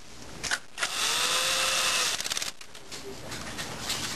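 A power screwdriver runs for about a second, driving a fuser mounting screw into the printer frame with a steady whine that spins up and winds down. A short run of quick clicks follows as it stops.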